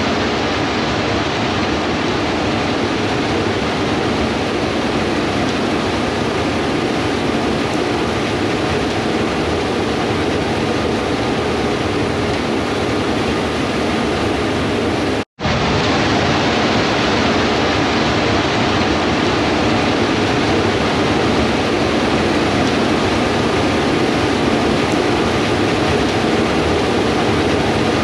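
Combine harvester running steadily at work, a dense even machine noise. It cuts out abruptly for an instant about halfway through, then carries on unchanged.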